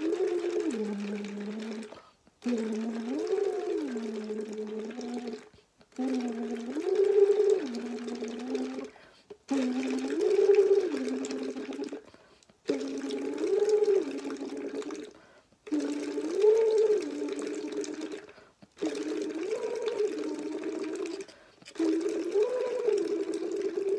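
A singer phonating through a straw into a cup of water, the voice buzzing with bubbling water, in a vocal warm-up. About eight short phrases are split by quick breaths. Each phrase slides up and back down in pitch, and each starts a step higher than the one before.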